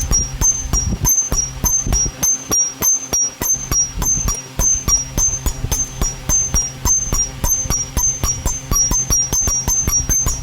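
Rapid, even hammer blows on copper, about four strikes a second, each ringing briefly with a high metallic tone, over a steady low hum.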